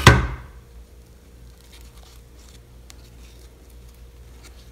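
A single sharp knock at the very start, fading within about half a second: a hot glue gun being set down on the tabletop. Then faint small rustles of satin ribbon petals being pressed and adjusted by hand.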